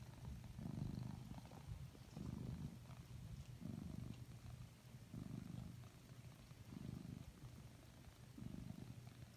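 Domestic cat purring softly, the purr swelling and fading with each breath about every one and a half seconds.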